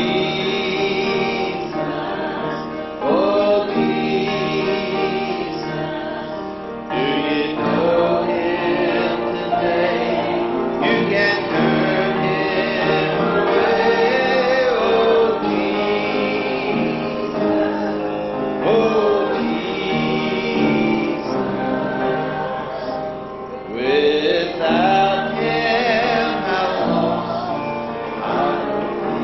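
A hymn sung with a man's voice leading and other voices joining, in sung lines with short breaths between phrases.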